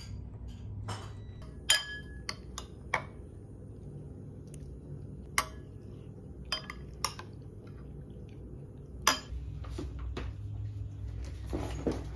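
A metal spoon clinking against a ceramic bowl of porridge: a run of sharp, irregularly spaced clinks, some ringing briefly.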